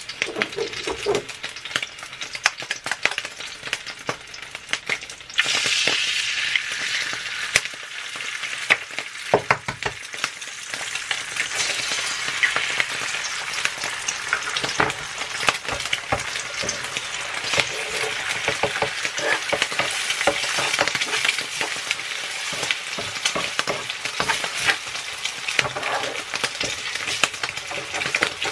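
Eggs and turkey bacon frying in olive oil on an electric griddle: a steady sizzle that turns suddenly louder about five seconds in as the first egg goes into the hot oil, with scattered small taps and clicks. Near the end a wooden spatula stirs and scrapes the eggs.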